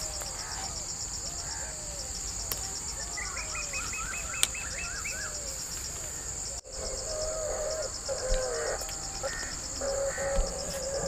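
Field insects trilling steadily in a high, finely pulsing drone, with birds calling over it: a quick run of chirps a few seconds in and lower, repeated calls later. The sound drops out briefly about six and a half seconds in.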